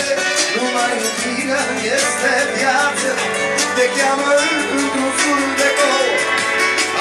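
Live pop music with singing, played loud through the hall's sound system.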